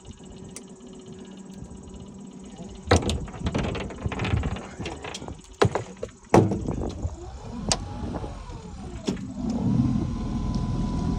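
Several loud clunks and knocks in the boat, then the boat's motor revving up and down and settling into a steady running whine near the end as the boat gets under way.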